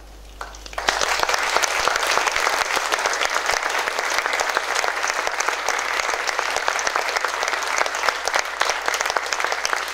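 Audience applauding: after a brief hush, many hands start clapping about a second in and keep up a dense, steady applause.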